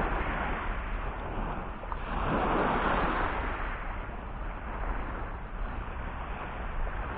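Small waves breaking and washing up a sandy beach: a wash of surf that swells about two seconds in and fades again, over a steady low rumble.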